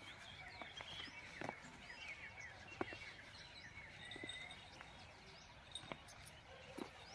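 Faint twittering of small birds, many quick chirps overlapping, with a few soft scattered clicks.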